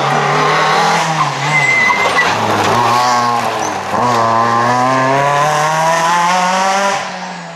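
Renault Twingo rally car driven flat out past the camera. The engine revs hard and drops twice as the driver lifts or changes gear, about two and four seconds in. It then climbs steadily as the car accelerates away and fades near the end.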